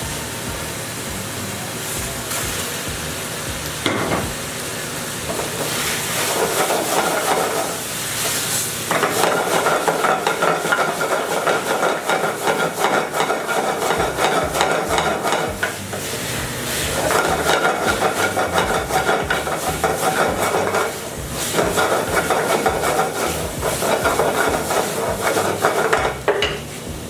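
Pan-fried momos being stir-fried in a kadai (wok): a spatula scrapes and rattles against the pan over steady sizzling. The scraping comes in stretches of several seconds with short pauses between.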